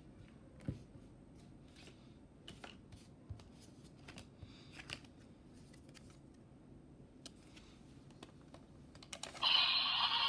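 Faint plastic clicks and knocks from a DX Chemy Riser toy being handled as a card is slotted in. Near the end the toy's speaker starts a loud electronic sound effect.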